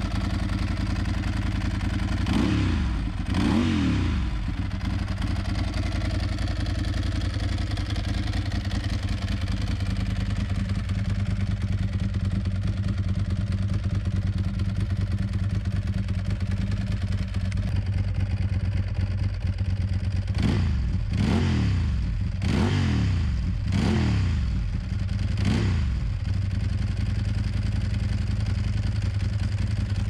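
Ducati 748's 90-degree V-twin idling through twin M4 mufflers on its first runs after a full rebuild. The throttle is blipped twice a few seconds in, then five quick revs in a row about two-thirds of the way through, each rising and dropping back to idle.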